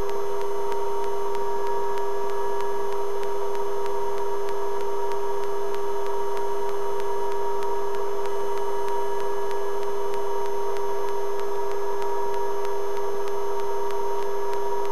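Helicopter running steadily in flight, picked up by a camera mounted on its airframe: a constant-pitched whine over an even rush of noise, with no change in pitch or level.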